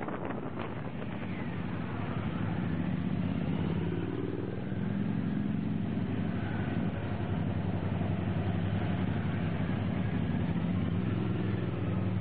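A line of Suzuki V-Strom motorcycles riding past one after another, their V-twin engines running in a steady drone. The drone gets louder about two seconds in.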